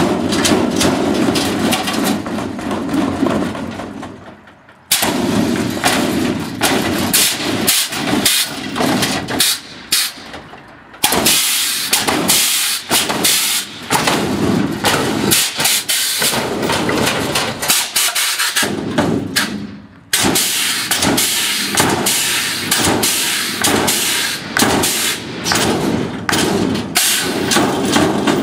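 Chevrolet S-10 pickup's air-ride suspension, run at only 25 bar, being hopped and danced: rapid runs of sharp bangs and air blasts from the valves and bags, with long stretches of loud hissing air. The action stops briefly twice.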